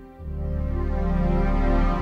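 Slow, soft keyboard ballad intro with no singing. A deep bass note and fuller chord come in just after the start, and the music swells.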